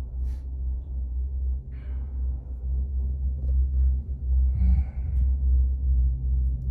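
Low, unsteady rumble of wind buffeting the microphone during an open chairlift ride, rising and falling irregularly.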